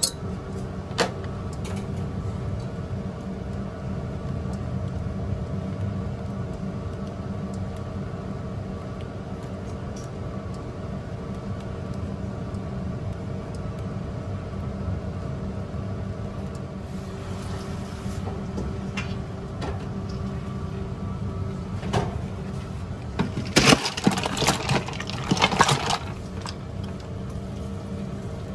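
Steady mechanical hum of kitchen equipment throughout. About two-thirds of the way in, a wooden spatula scrapes and knocks against a stainless-steel pot for a few seconds while thick egg-yolk sauce is stirred; this is the loudest sound.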